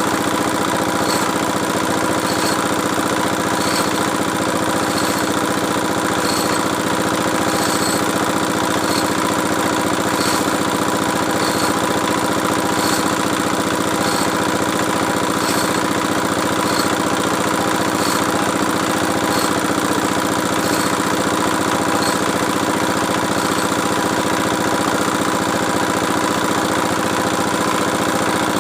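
The engine of a well-drilling rig runs steadily at constant speed. A faint click recurs about once a second.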